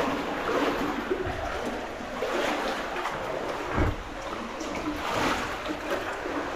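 Water sloshing and splashing in uneven surges as a caver crawls through a waist-deep cave stream, with a dull knock about four seconds in.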